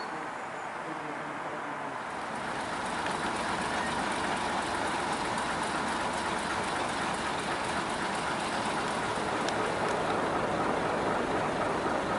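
Heritage diesel multiple unit standing at the platform with its engines idling: a steady running noise with a hiss to it that grows a little louder a few seconds in.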